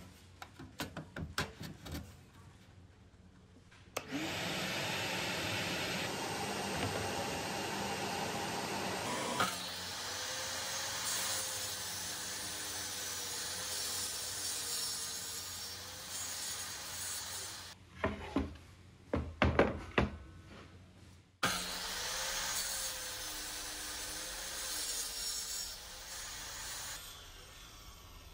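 A jobsite table saw runs twice, starting abruptly each time and cutting plywood on a crosscut sled, its pitch wavering under the cut. Between the two runs come several loud wooden knocks, and there are a few lighter knocks near the start.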